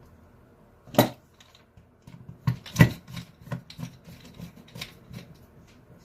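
Parts of a Porter Cable Quicksand sander being handled and fitted back together by hand. A sharp click comes about a second in, then a run of irregular lighter clicks and taps.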